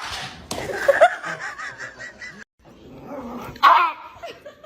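A dog barking and a person laughing in a run of short, even bursts, cut off abruptly about halfway through. A loud single dog bark comes near the end.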